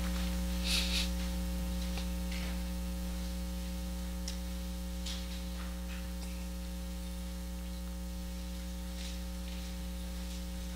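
Steady electrical mains hum, a low buzz made of several fixed tones, with a few faint, brief hissy rustles.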